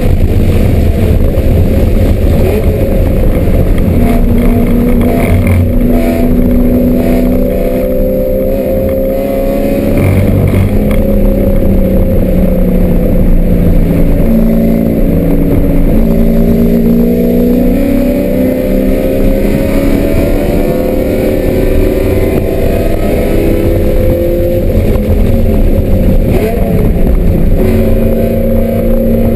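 BMW M3 engine driven hard on a race circuit, its revs climbing and dropping back with each gear change.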